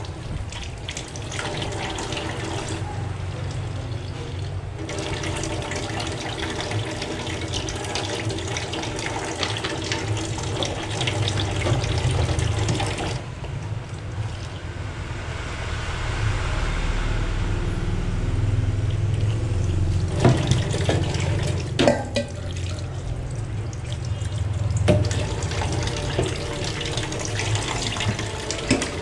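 Kitchen tap running into a stainless steel sink while dishes are rinsed and scrubbed by hand. A few sharp clinks of stainless steel bowls being handled come in the second half.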